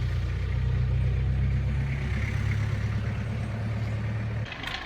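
Motor vehicle engine running at a steady low hum, cut off abruptly about four and a half seconds in.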